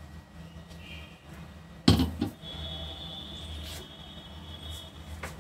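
A stainless steel mixer-grinder jar being handled: a single sharp clunk about two seconds in, over a low steady hum, followed by a faint high steady tone.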